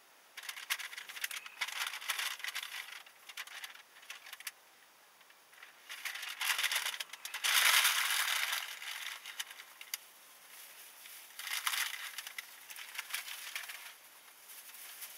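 Three spells of dense rattling and crackling clicks, loudest about eight seconds in.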